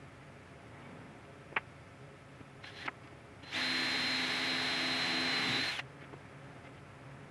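Stanley cordless drill drilling a hole through a board for about two seconds at a steady speed, then stopping abruptly, preceded by a few light handling clicks.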